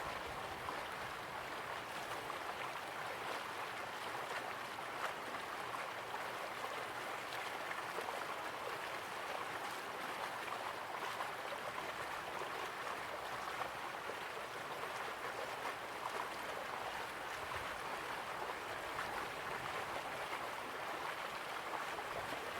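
Flowing water, a steady even rush with small splashy ticks through it, like a stream.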